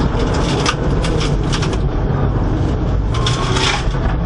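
Rally car's turbocharged flat-four engine running hard inside the cabin of a Subaru Impreza WRX STI R4 on a snow stage. Bursts of hiss and rattle over it, from snow and gravel thrown against the underbody and wheel arches, during the first two seconds and again about three seconds in.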